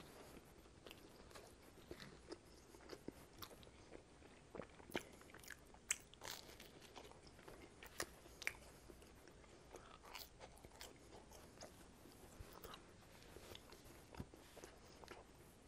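Close-miked chewing of cheesy bread crust: faint, with scattered soft crunches and wet mouth clicks.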